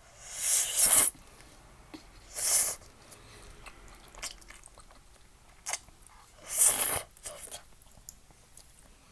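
A person slurping hot udon noodles in three loud hissing slurps, the first right at the start, one about two and a half seconds in and one near seven seconds, with quiet chewing and mouth clicks between.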